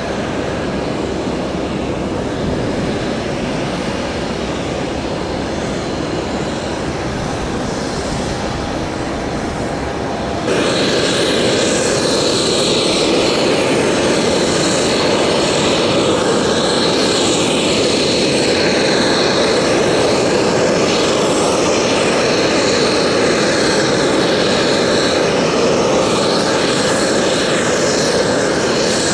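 Jet engines running, heard as a steady rush with a low rumble. About ten seconds in it jumps louder and a steady high whine comes in.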